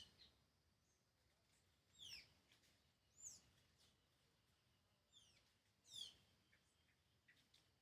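Xexéu bananeira giving short, high whistled calls that slide steeply down in pitch, about five of them spaced a second or two apart.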